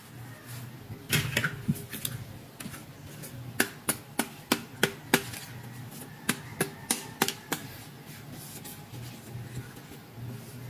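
Hard plastic toy pieces clicking and tapping as they are handled: a run of sharp, irregular clicks, a few a second, that stops about three-quarters of the way through.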